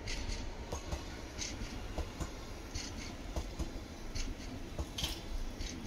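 Modern CAF-built tram passing with a low rumble, overlaid by irregular light scratching and clicking noises.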